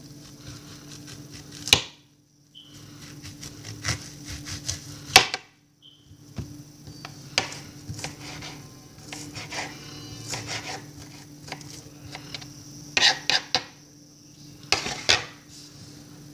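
Kitchen clatter from food preparation: irregular sharp knocks and taps of a knife and dishes, the loudest about two seconds in, five seconds in, and a cluster near the end. The sound cuts out completely twice, briefly, in the first six seconds.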